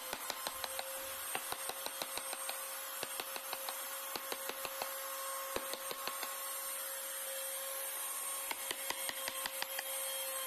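Hand carving chisel cutting into a wooden door panel, making quick repeated sharp clicks and knocks, several a second, over a steady hum.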